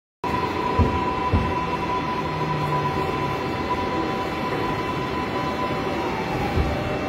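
New York City subway car standing at a station: a steady electrical hum from the car's equipment with a few high steady tones, and two dull thumps about a second in. About six seconds in, one tone slides a little lower in pitch, and another thump comes near the end.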